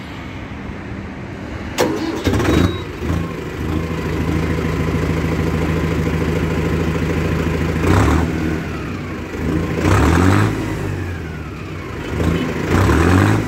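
Mahindra 605 DI PS Arjun Novo tractor's 3522 cc diesel engine starting about two seconds in, settling to a steady idle, then revved up briefly three times near the end.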